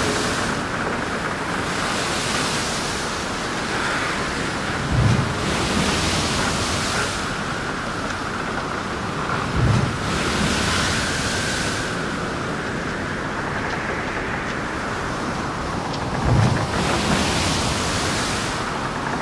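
Stormy surf breaking over coastal rocks in a strong wind: a continuous rush of white water that swells with each breaking wave every few seconds, with wind on the microphone and three deep thumps about 5, 10 and 16 seconds in.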